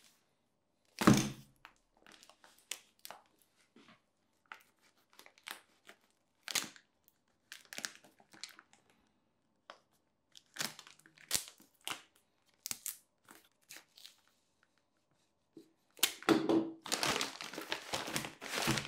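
Paper and plastic packaging being unwrapped by hand: a loud thump about a second in, then scattered short crinkles, rustles and tearing sounds. Near the end, continuous crinkling as a large sheet of plastic wrap is handled.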